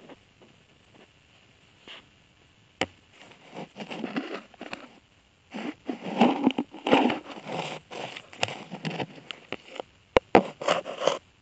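Loud handling noise: irregular rubbing and scraping against the microphone with scattered sharp clicks and knocks, heaviest in the second half, with two sharp knocks near the end.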